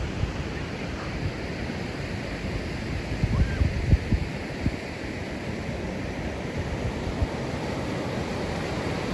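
Pacific Ocean surf breaking and washing up a beach, a steady rush, with wind buffeting the microphone in low thumps that are strongest about three to four seconds in.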